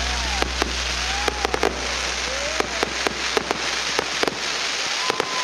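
Fireworks going off: a steady crackle of sparks punctuated by many sharp pops, with a few brief whistling tones rising and falling through it.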